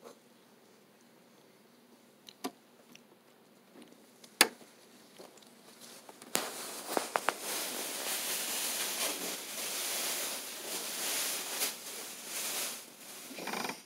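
A sponge scrubbing a newborn's wet hair: a few isolated clicks, then from about six seconds in a dense, scratchy rubbing that keeps going and stops abruptly.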